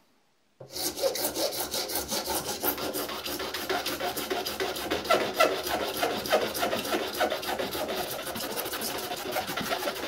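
Flat hand file rasping over a pair of straight-razor scales held in a bench vise, in steady, rapid back-and-forth strokes that begin about half a second in. The scales are being filed down flat and symmetrical together.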